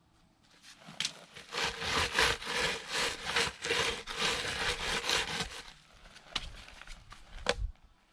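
Rapid scraping or rubbing strokes, about three a second, for some four seconds. A few light ticks follow, then a single sharp knock near the end.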